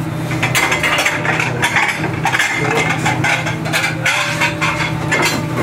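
Busy commercial kitchen: a steady low hum of kitchen equipment under irregular clinks and clatter of crockery and utensils on a steel counter.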